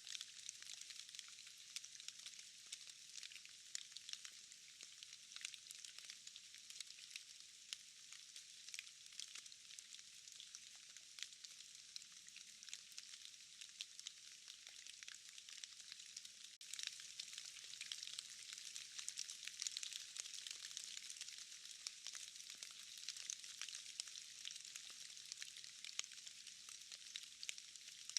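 Steady rain pattering on forest leaves and moss, a dense fine crackle of many small drops. It becomes slightly louder about two-thirds of the way through.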